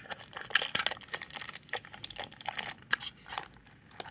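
Toy packaging crinkling as it is handled and pulled at, a run of irregular small crackles and clicks.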